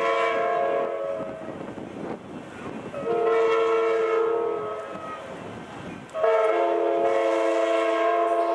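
Amtrak Pacific Surfliner locomotive's multi-note air horn sounding long blasts: one fades out about a second and a half in, another sounds about three seconds in, and a third starts about six seconds in and holds to the end. The passing train's rumble runs beneath.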